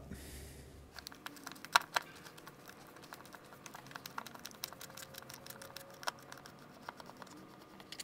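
Small screwdriver backing out the bottom screw of a Craftsman garage door opener keypad's plastic housing: faint, irregular ticks and clicks, with a couple of sharper clicks about two seconds in.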